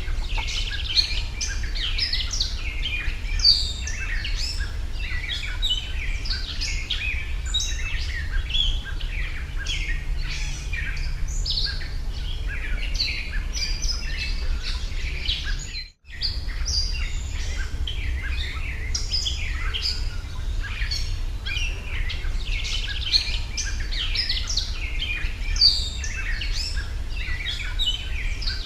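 A dense chorus of many small birds chirping and trilling over one another, with a steady low rumble underneath. Everything cuts out for a split second about sixteen seconds in, then resumes.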